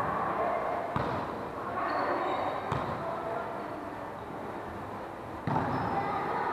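A volleyball being struck three times, sharp slaps about one second in, near three seconds and about five and a half seconds in, the last the loudest, over a background murmur of voices in a large hall.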